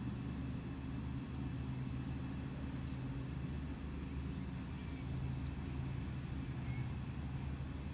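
Steady low mechanical drone in the background, with a few faint, short high chirps about a second and a half in and again around four to five seconds.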